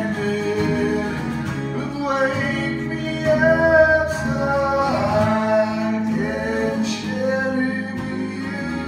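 Music: a song with singing over instrumental backing.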